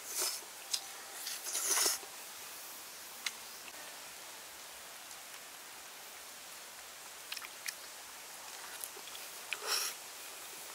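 Noodles being slurped in short noisy bursts: just after the start, twice around two seconds in, and once near the end. Chewing and a few small clicks come between the slurps.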